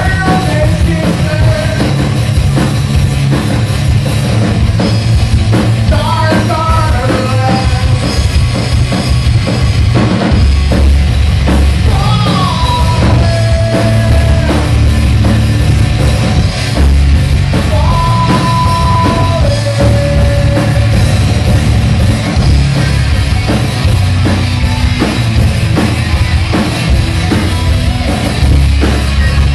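Loud live rock band: two electric guitars played through Marshall amplifiers over a drum kit, with some long held notes.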